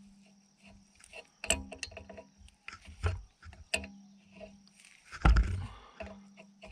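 Wrench and metal hydraulic hose fittings clicking and clanking as a fitting is threaded on and tightened, with a heavier thump about five seconds in.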